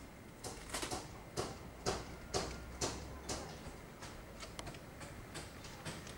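A run of sharp knocks, about two a second, fainter and more irregular in the second half.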